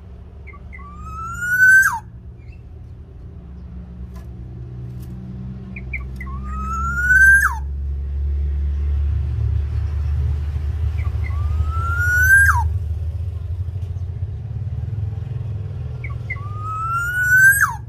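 Caged black-naped oriole calling four times, about five seconds apart: each call is a couple of short soft notes, then a long rising note that drops off sharply at the end. A low rumble runs underneath and swells in the middle.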